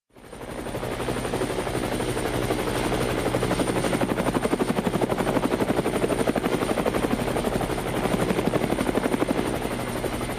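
Helicopter rotor chopping with a fast, even pulse and a thin high steady whine, building up over the first second and then holding steady.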